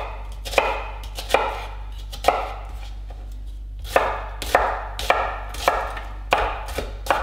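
Chef's knife dicing red onion on a wooden cutting board: a sharp knock of the blade on the board at each cut, followed by a short crunch of onion, about ten cuts at an uneven pace with a pause of over a second in the middle.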